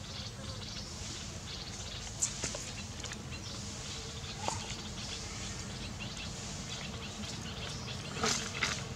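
Outdoor woodland ambience with a steady hiss, faint bird chirps and a few short clicks. A brief rising squeak comes about halfway through, and a cluster of louder rustling crackles comes near the end.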